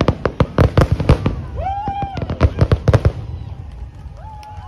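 Aerial fireworks crackling and popping in rapid strings of sharp cracks, thinning out after about three seconds. A brief held, pitched tone sounds about two seconds in.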